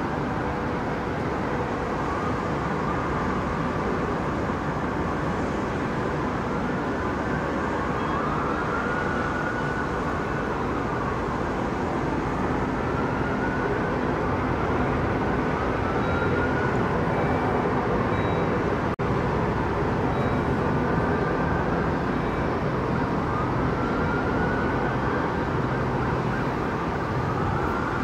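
Siren wailing in slow rising-and-falling sweeps, one every three to four seconds, over a steady din of engine noise.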